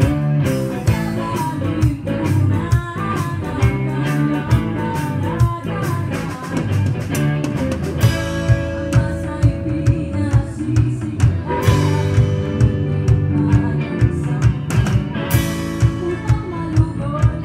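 Live rock band playing: electric guitars, bass and a drum kit, loud and close. A steady drum beat comes to the fore about halfway through.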